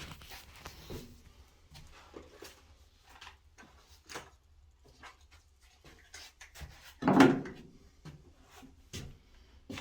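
Door knob and lock hardware being handled and fitted: scattered light clicks and knocks of small metal parts, with one louder short knock about seven seconds in.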